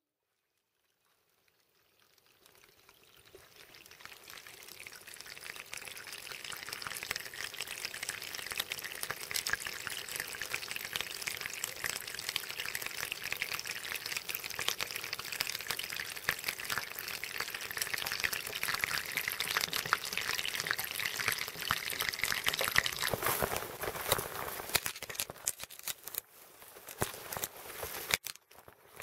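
Crackling, hissing water sound that fades in after about three seconds of silence, grows steadily louder, then drops away shortly before the end.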